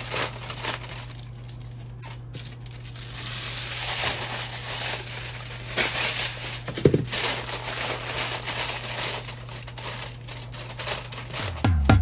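Irregular crinkling and rustling, like something being handled close to the microphone, over a steady low electrical hum, with a brief low thump about seven seconds in.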